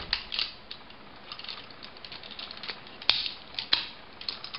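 Plastic parts of a Transformers Cybertron Galaxy Convoy action figure clicking and rattling as they are handled and folded, with two sharper clicks about three seconds in.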